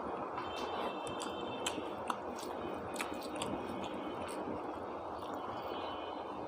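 A person eating, with scattered chewing clicks and mouth smacks over a steady background hiss.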